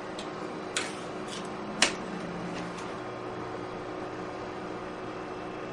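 A few sharp taps or clicks, the two loudest about a second apart, over a steady low hum.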